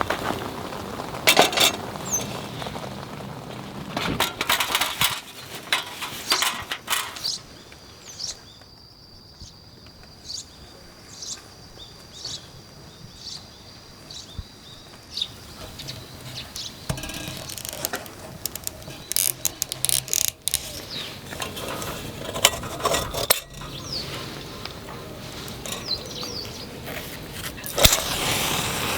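Hands at work pitching a tent and tarp: nylon fabric rustling and flapping, with scattered clicks and knocks from poles and pegs. There is a quieter spell in the middle.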